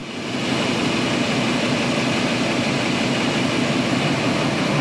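Web-fed offset printing press running: a steady, loud mechanical din with a hiss, swelling over the first half second.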